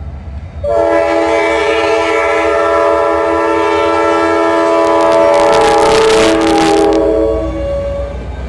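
Norfolk Southern diesel locomotive's air horn blowing one long chord of several notes, starting about a second in and fading near the end, over the low rumble of the locomotives going by. A loud rush of noise peaks about two-thirds of the way through as the lead locomotive passes close.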